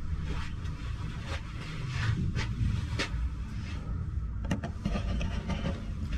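Low rumbling handling noise from a handheld camera being moved around, with a few soft knocks and rubs, the sharpest about four and a half seconds in.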